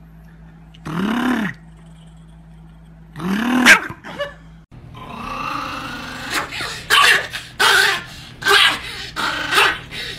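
A Chihuahua gives two drawn-out grumbling calls, each rising and then falling in pitch. A small dog then vocalizes in a quick run of short loud calls, about one and a half a second.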